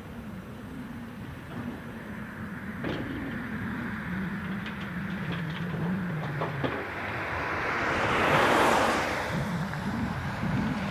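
Heavy diesel engines of a Volvo FH tipper truck and a wheel loader running steadily at a gravel dump, with scattered clicks and clanks. About eight seconds in, a loud rushing sound swells up and dies away.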